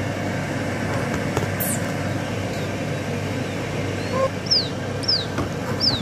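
Quail chicks peeping: starting about four seconds in, a run of short, high peeps that fall in pitch, about two a second, over a steady low background rumble.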